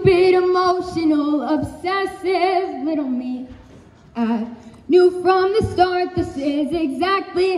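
A girl singing solo, holding long notes with vibrato, with a brief pause in the middle.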